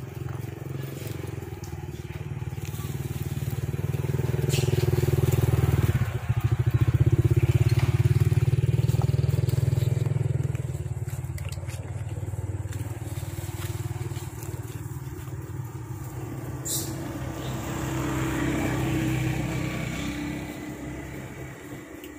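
Motorcycle engine running with a low rumble, growing louder for several seconds in the middle and then easing off.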